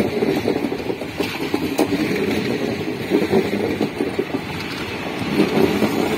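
Passenger train coaches rolling slowly past close by: a steady rumble of steel wheels on rail, broken by irregular clanks and clicks from the wheels and bogies.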